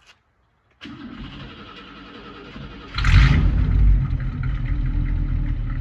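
1960 Cadillac Coupe de Ville's 390 V8 running through its dual exhaust. It comes in abruptly about a second in, revs up sharply about three seconds in, then settles into a steady, loud idle.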